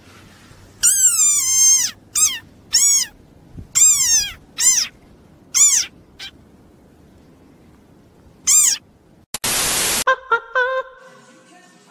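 A desert rain frog squeaking: about seven high-pitched squeaks, the first about a second long and falling in pitch, the rest short and arched. Near the end there is a burst of static hiss, then short pitched blips.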